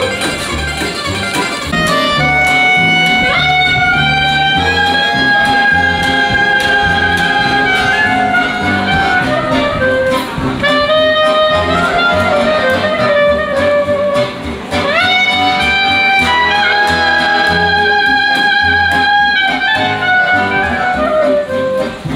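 Instrumental background music: a melody of long held notes that twice slides up into a new phrase, over a repeating bass line.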